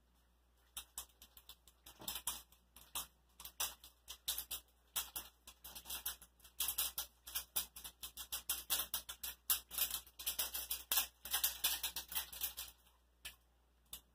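A fishing rod with a glow stick clipped to it is shaken hard back and forth, making quick irregular rattling and swishing sounds, several a second. The shaking starts just under a second in and stops about 13 seconds in, with a last couple of shakes near the end.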